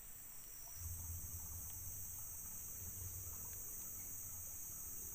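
Steady, high-pitched chorus of insects. A low rumble joins about a second in.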